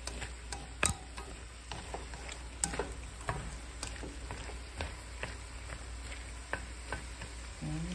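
Bitter melon and scrambled egg stir-frying in a stone-coated nonstick pan with a steady sizzle, as wooden chopsticks scrape, click and tap against the pan; the sharpest tap comes about a second in.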